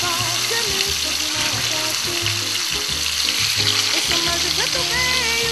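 Chicken pieces frying in hot fat in a clay pot, a steady sizzle.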